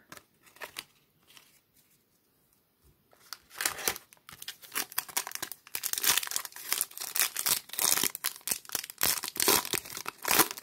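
Foil wrapper of a Topps Mini trading-card pack being torn open and crinkled by hand: a dense crackling that starts about three seconds in, after a few faint handling ticks.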